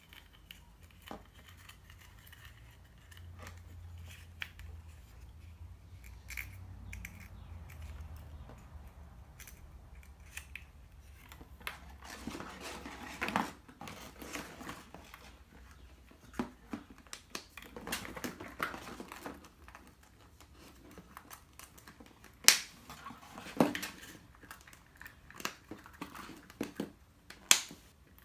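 Hollow plastic Easter eggs being handled: halves pulled apart and pressed shut, giving light plastic clicks and rattles. The handling is faint at first, turns busier about halfway through, and a few sharp snaps stand out near the end.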